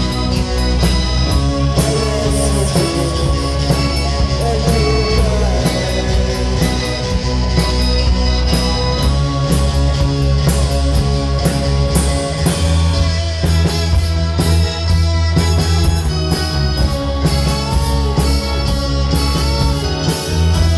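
Live rock band playing: distorted-style electric guitar and a Casio keyboard synthesizer over a drum kit, with a heavy low bass line that grows stronger about twelve seconds in.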